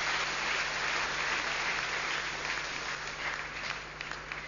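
Crowd applauding after a point, the clapping dying away toward the end.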